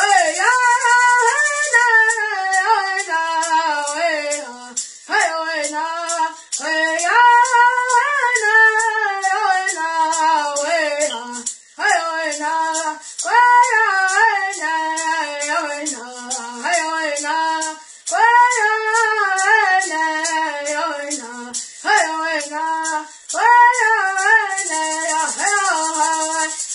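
A boy singing a Hopi corn song in phrases with short breaths between them, keeping time with an even beat on a handheld rattle.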